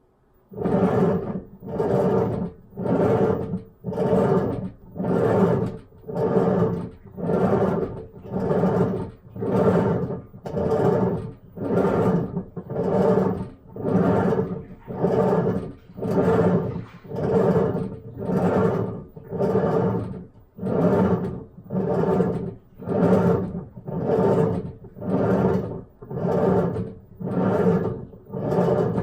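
Hitachi BeatWash washing machine making a loud abnormal noise in a steady rhythm of about one pulse a second, each pulse lasting under a second, starting suddenly about half a second in.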